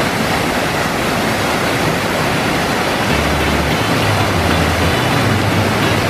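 Waterfall's steady, loud rushing as white water pours down the rocks into a pool.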